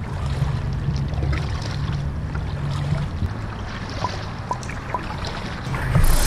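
Canoe being paddled: water trickling and splashing off the paddle, over a low steady rumble. Sounds get a little louder near the end.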